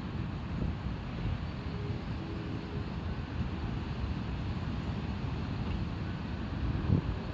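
Strong typhoon wind buffeting the microphone as a steady, gusty low rumble, with rough surf beneath it.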